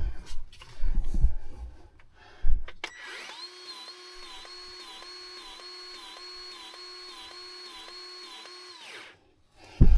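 A battery-powered grease gun's motor whines steadily for about six seconds, with a regular pulse of about two pump strokes a second. It is pumping grease at a U-joint Zerk fitting that is still not taking grease. Before it starts there are a few loud knocks of tool handling, and another knock comes near the end.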